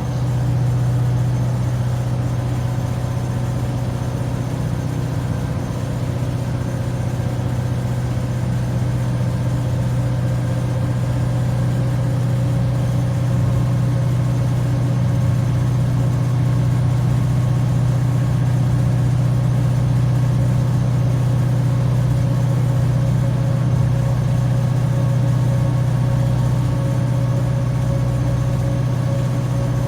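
Class 755/3 bi-mode train's diesel engines working hard with their cooling fans running as the train pulls away: a loud, steady drone with a strong low hum.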